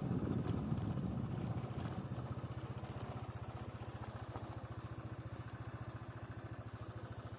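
A small engine running with a steady, rapid low beat, slowly growing fainter.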